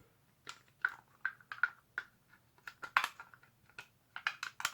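Light, irregular plastic clicks and taps, about a dozen, as a 3D-printed filler part is handled and pressed into place in a plastic blaster shell.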